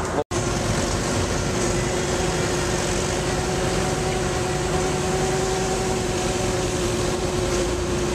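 Amphibious ATV engine running at a steady, even drone as the vehicle wades through deep water, with a brief cut-out of all sound just after the start.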